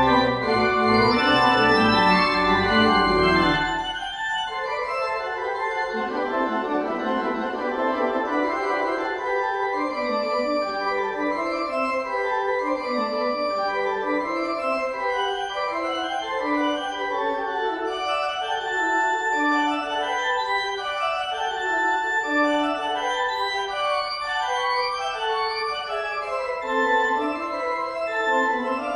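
Pipe organ playing. A loud, full chord with deep pedal bass is held for about four seconds and then released, and a quieter passage of quickly changing notes in the middle range follows.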